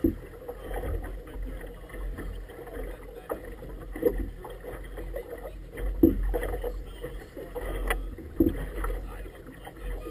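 Choppy water slapping against the rubber tube of an inflatable boat, with a steady low rumble and heavier thumps of waves striking the hull about four, six and eight and a half seconds in.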